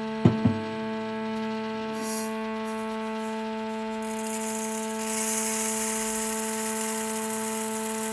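Ambient drone music: a steady chord of held electronic tones, with two sharp struck notes just after the start and a high hissing wash of noise that swells in about four seconds in.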